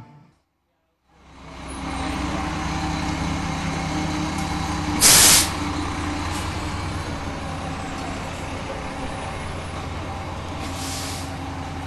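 Inside a city bus: the engine runs with a steady low rumble. About five seconds in there is a loud short burst of air-brake hiss, and a fainter hiss comes near the end.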